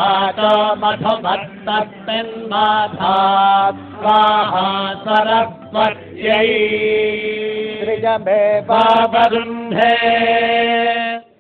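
Vedic chanting of Sanskrit mantras: a voice reciting in short melodic phrases, with long held notes about six seconds in and again near the end.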